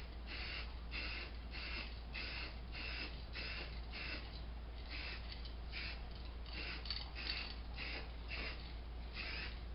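Rasping back-and-forth strokes of a hand tool worked over a hard surface, about two a second. The strokes are regular at first and become less even in the second half.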